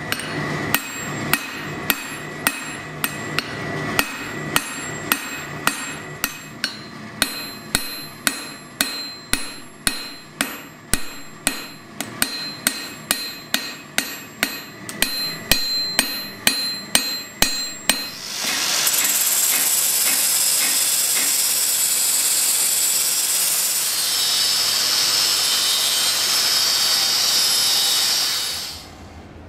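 Hand hammer striking red-hot steel held in tongs on an anvil, about two blows a second with a ringing after each. About eighteen seconds in, an angle grinder takes over, grinding steel steadily until it winds down near the end.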